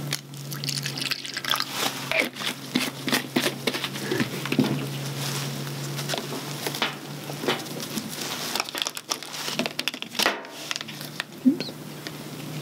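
Clicks, taps and crinkling of plastic being handled, with water poured from a plastic bottle into a small pot. A fine-bore feeding tube's tip is then dipped in to activate its self-lubricating coating.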